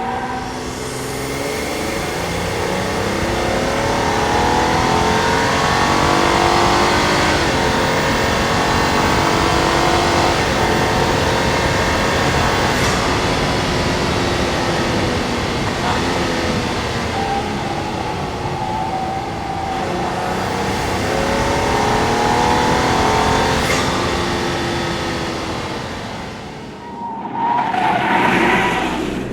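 Ford Explorer ST SUV's twin-turbo V6 engine being driven hard, its pitch climbing and falling several times as it accelerates and eases off. Near the end the sound drops away briefly, then a short loud burst follows.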